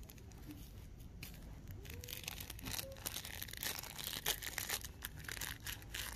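Crinkling of a dirt-covered plastic lollipop wrapper being picked up and handled: a run of short, faint crackles that get louder about halfway through.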